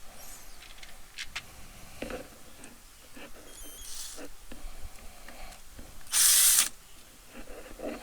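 An electric screwdriver whirs in one short half-second burst about six seconds in, backing out screws to take apart a stage light's housing. Small clicks and knocks of handling the light's parts come before it.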